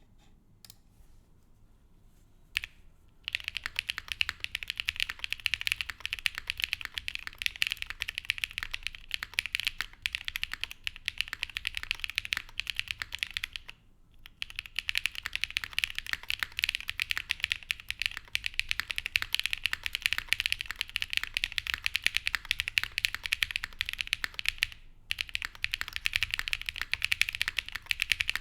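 Fast continuous typing on a mechanical keyboard with lubed Geon Black linear switches in an aluminium half plate, under GMK Dandy keycaps: a dense stream of key clicks. There is a single keystroke before the typing starts about three seconds in, and the typing pauses briefly about midway and again near the end.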